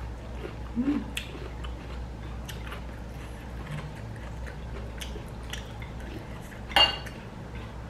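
Close-up chewing and small wet mouth clicks from eating rice by hand, with a few light ticks and one sharper click about seven seconds in.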